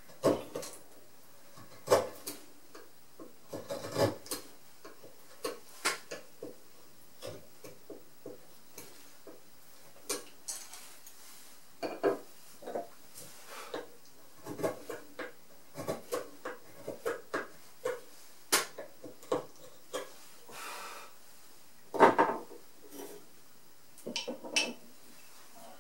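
Carving chisel paring very hard zelkova (keyaki) wood by hand: a run of irregular short cutting clicks and scrapes, with a few louder knocks.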